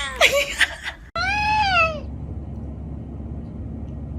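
A person laughing for about a second, then, after an abrupt cut, a cat meowing once in a call that rises and falls, over a steady low background hum.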